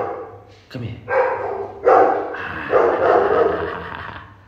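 Poodle giving a run of drawn-out, howling barks, about four in a row, the last one the longest.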